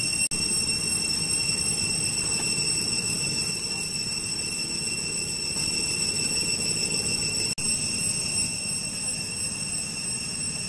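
Steady, high-pitched chorus of cicadas ringing on several pitches at once over a low background rumble, with the sound cutting out for an instant twice.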